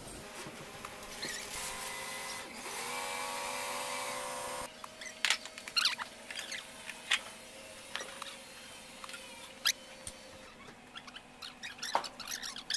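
Hand tools clinking and ticking against a Weichai WD615 diesel's cylinder heads and valve gear: scattered sharp metallic clicks, the loudest a few seconds in and near the end. For the first few seconds a steady droning tone with several pitches runs underneath, then cuts off suddenly.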